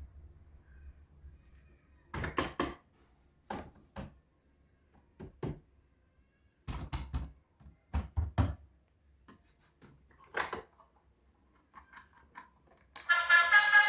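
Scattered knocks and clacks of toy vehicles being handled, coming in small clusters with quiet gaps between. Music starts about a second before the end.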